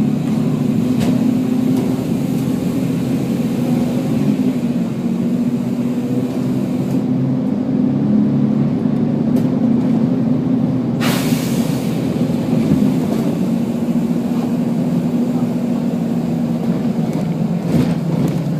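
Volvo B10BLE bus's diesel engine running with a steady drone, and a short, sharp hiss of compressed air from the bus's air system about eleven seconds in.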